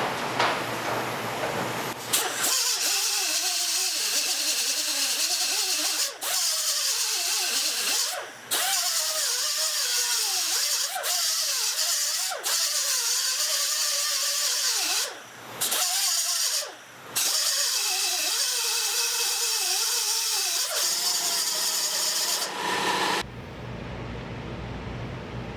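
Die grinder grinding the pin heads off a motorcycle drive chain's master link flush, to cut the worn chain off. Its high whine wavers as the load changes, stops briefly four times, and cuts off a couple of seconds before the end.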